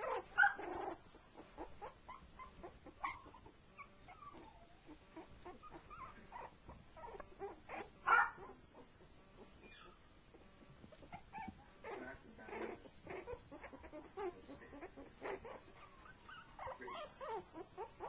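Three-week-old shorty Jack Russell Terrier puppies whimpering as they play, short cries coming and going, the loudest about half a second in and about eight seconds in.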